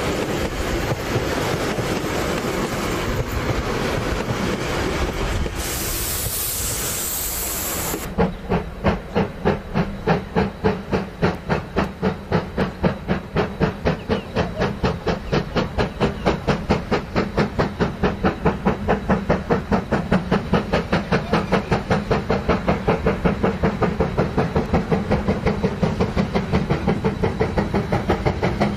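Passenger carriages rolling past with steady wheel noise, then, after a brief burst of hiss about six seconds in, the exhaust beats of NZR Ka 945, a 4-8-4 steam locomotive, working hard and quickening from about three to over four beats a second as it gets its train moving.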